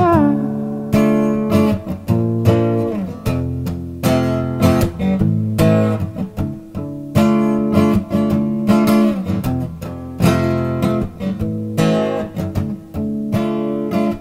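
Acoustic guitar strummed by hand, a steady rhythmic pattern of chord strokes with the chords ringing between strokes.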